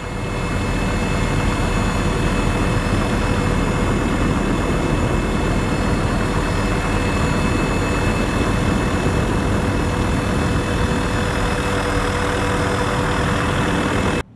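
Helicopter engine and rotor noise: a steady din with a faint constant whine over it, cutting off suddenly at the end.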